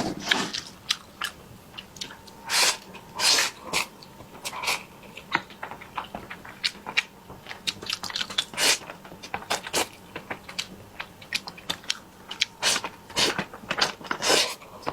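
Close-miked eating sounds: chewing and biting food in an irregular run of short wet clicks, with a few longer, louder smacking sounds.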